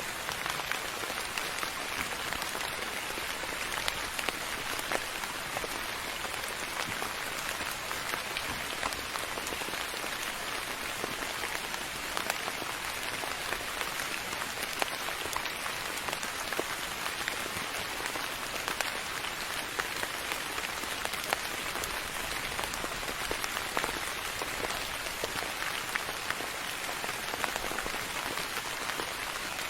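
Soft, steady rain falling on a surface, an even hiss with many distinct single drop hits scattered through it.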